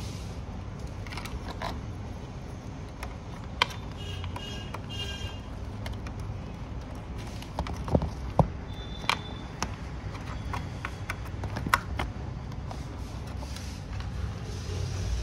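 Clicks and knocks of a cable plug being handled and pushed into the power connector of a laptop motherboard on a workbench, loudest about eight seconds in. Under them runs a steady low hum, and a brief high tone sounds about nine seconds in.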